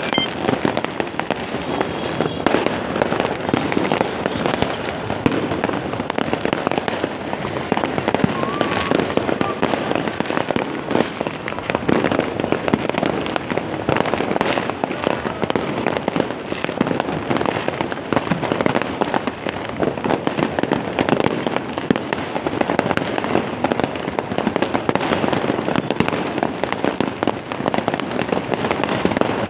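Fireworks bursting continuously, a dense run of many overlapping bangs, cracks and pops with no pause.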